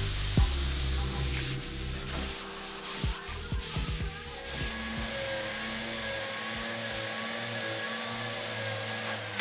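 Random orbital sander running over a fiberglass-and-epoxy panel, a steady whir with abrasive scrubbing. A series of short clicks and knocks comes through the first half.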